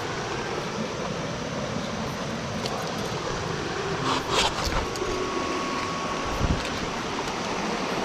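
Steady rush of a small rocky mountain stream running over stones, with a brief rustle about four seconds in and a low thump near six and a half seconds.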